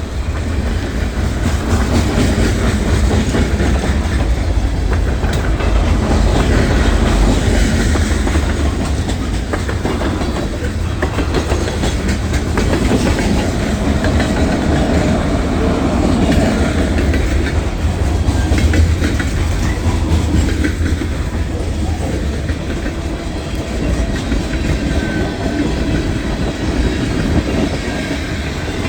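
CSX mixed freight train's cars rolling past at trackside, with a steady loud rumble and the clickety-clack of wheels over the rail joints.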